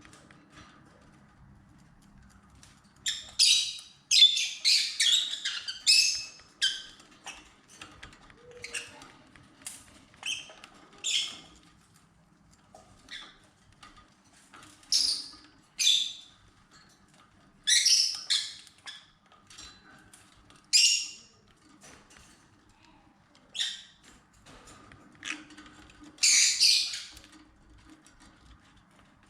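Lovebirds calling: short, shrill, high-pitched chirps and squawks, some in quick runs and some single, starting about three seconds in, with pauses of a second or more between them.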